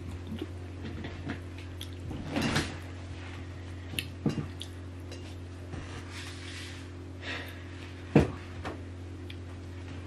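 Quiet eating sounds of someone chewing eba with egusi soup: scattered mouth clicks and lip smacks, with a sharper knock about eight seconds in, over a steady low hum.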